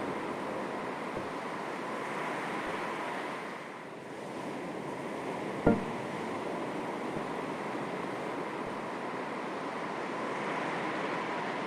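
Gentle sea waves lapping on the shore, the wash swelling and easing, with a single short sharp thump a little past the middle.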